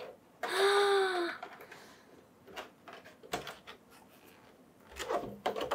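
A woman's short voiced exclamation, an 'ooh' rising and falling in pitch, about half a second in. Then faint scattered clicks and rustling of a figure's packaging being handled, busier near the end.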